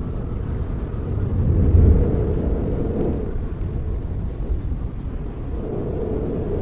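FPV drone in flight, heard as a steady low rumble of propellers and rushing air that swells about two seconds in.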